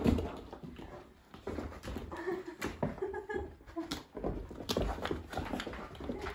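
Two dogs moving excitedly among scattered plastic ball-pit balls: a string of light clicks and knocks, with a few short dog whines in the middle.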